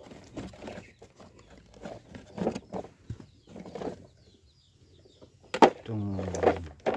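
Broken red bricks clattering and knocking against each other and the plastic bed of a toy dump truck as they are moved by hand, in a string of short irregular knocks. A sharp knock and a short low vocal sound come near the end.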